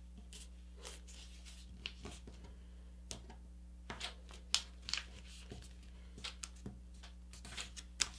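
A folded sheet of paper rustling and crinkling under the fingers as a paper airplane's wing is folded and creased: a string of soft, short rustles and taps, a few sharper ones about halfway through and near the end, over a faint steady hum.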